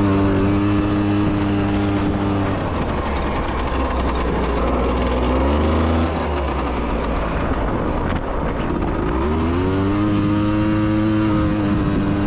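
Polaris 400 ATV's single-cylinder engine running hard with a 3D-printed carbon fiber piston, the quad ridden at wide-open throttle. The note is steady at first, goes rougher in the middle with a dip and climb in revs, then climbs back and holds steady near the end.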